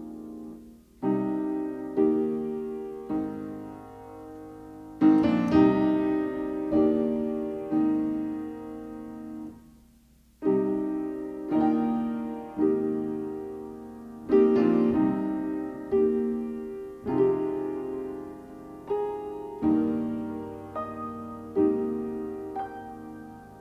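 Background piano music: slow notes and chords, each struck and left to fade, with a brief pause about ten seconds in.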